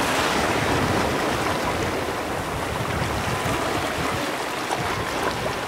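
Small sea waves washing and foaming over a shallow rocky shore: a steady rush of water, a little louder at first.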